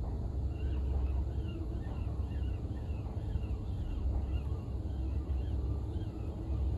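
Wind buffeting the microphone with a steady low rumble, under a stream of short, high chirping bird calls.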